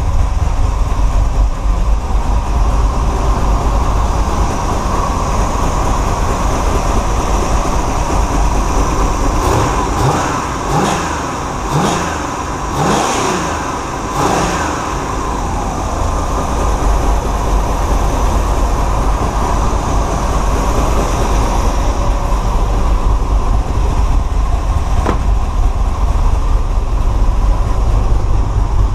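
Vehicle engine running on its first start-up. Its pitch rises and falls several times between about ten and fifteen seconds in as it is revved, then it settles back to a steady run.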